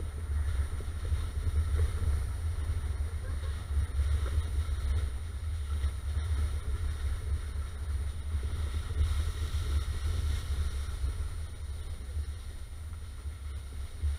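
Volvo XC90 driving along a rough, wet dirt track, heard as a muffled, steady low rumble from a camera mounted outside on the bonnet, with wind on the microphone.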